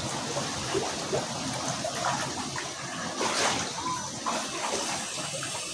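Water sloshing and splashing in a large plastic tub as a person bathes in it and moves about.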